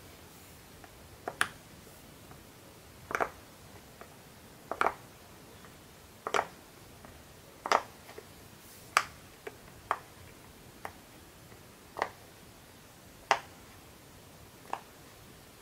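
Silicone pop-it fidget toy bubbles being pressed in one by one, each giving a sharp, short pop, about a dozen at an uneven pace of roughly one every second or so.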